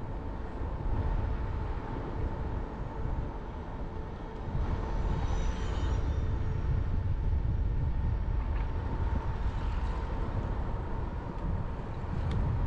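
Street traffic on a wide multi-lane city road: a continuous low rumble of passing cars, with a faint steady tone running under it.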